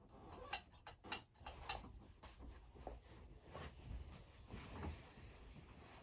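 Hunter Original ceiling fan starting up, run without its oil: faint, with soft ticks about twice a second over a low hum.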